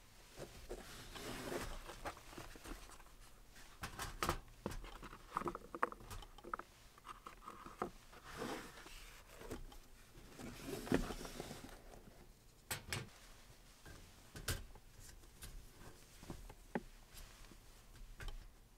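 Cloth rustling and small objects being handled and set down on a mesh camp table, with scattered light clicks and a few sharper knocks.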